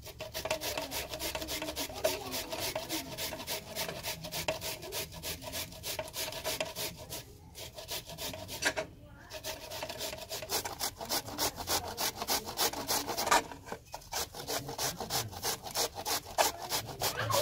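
Carrots being grated by hand on a stainless steel box grater: quick, repeated rasping strokes of carrot scraping across the metal blades, with a few brief pauses.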